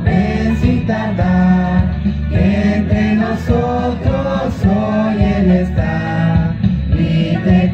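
A small group of voices singing a hymn together into microphones.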